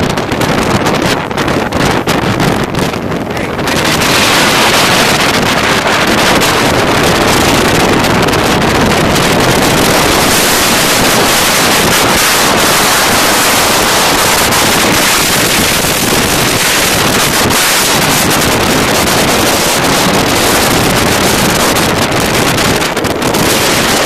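Storm wind gusting at 60 mph and more, blasting the microphone: a loud, continuous rushing noise that strengthens sharply about three and a half seconds in and then holds.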